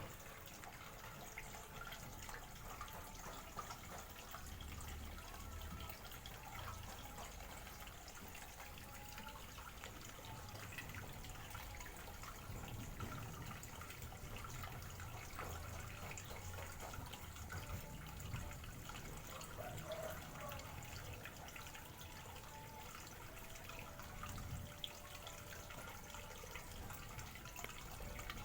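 Faint, steady trickling and dripping of water, with many small scattered ticks.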